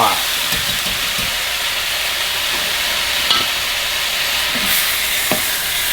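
Onion, celery, bell pepper and garlic sizzling steadily in a dark roux in a cast-iron pot running hot, with a couple of light clicks.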